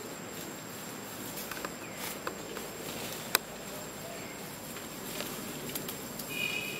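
Steady outdoor insect hum with scattered light clicks and rustles of dry leaves as a baby macaque walks across leaf litter, one click sharper a little past three seconds in. A brief high chirp comes near the end.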